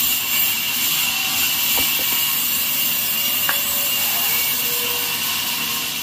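Large vertical band saw cutting lengthwise through a thick slab of log. A steady sawing hiss with a constant high whine running through it.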